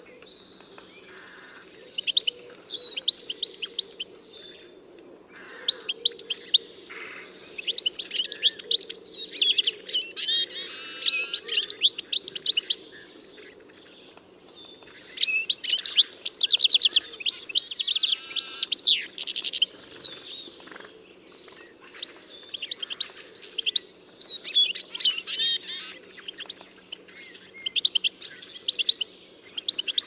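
Small songbirds singing: bursts of rapid, high chirps and trills lasting a few seconds each, with short pauses between, over a faint steady low hum.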